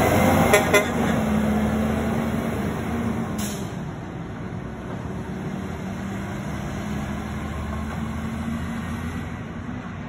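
Garbage truck horn giving two short toots, then the side-loading garbage truck's engine running steadily and slowly fading as it pulls away.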